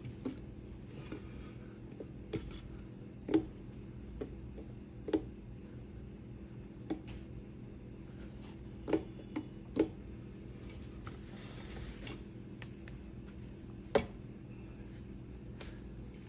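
Scattered light clicks and metallic taps, about a dozen at uneven intervals, as gloved hands shift a silicone coupler along a polished aluminium intake pipe, with a steady low hum underneath.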